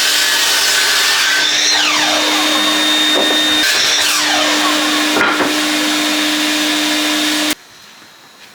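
Electric power saw running steadily and cutting lengths of 4x2 timber; it cuts off suddenly near the end.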